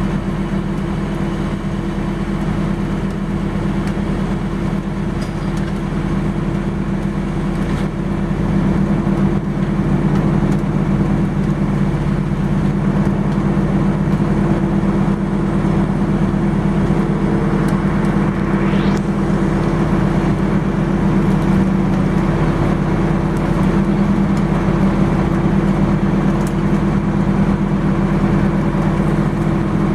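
A large engine running steadily with a low hum, getting a little louder about eight seconds in.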